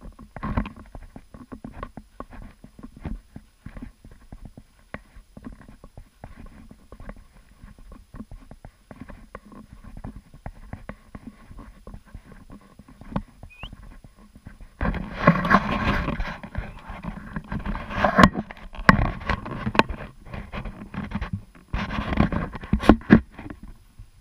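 Footsteps crunching through snow at a steady walking pace. From about fifteen seconds in until near the end, a louder stretch of rustling and knocks.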